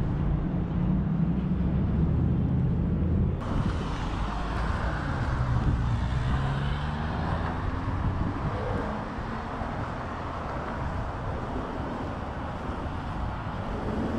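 City street traffic: vehicle engines running and passing, with a low hum that rises and falls in pitch. About three seconds in, a broader hiss of road noise comes in suddenly.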